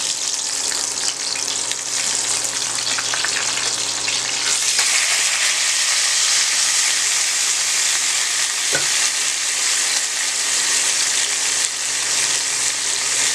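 Butterflied milkfish (daing na bangus) sizzling steadily in hot oil in a frying pan, with a wooden spatula scraping the pan and turning the fish in the first few seconds. The sizzle grows louder about four to five seconds in, once the fish is lying flipped in the oil, and a single light tick comes past the middle.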